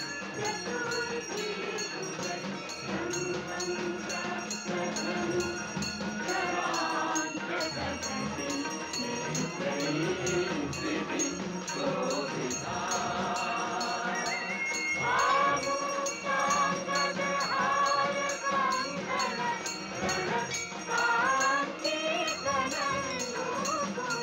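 Devotional background music with a chorus of voices singing, the melody wavering over a steady held tone.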